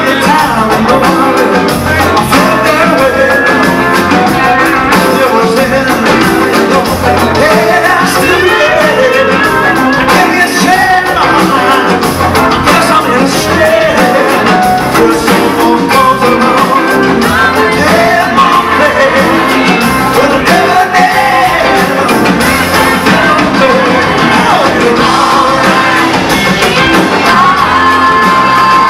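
Live rock band playing with a large group of singers singing together, loud and continuous.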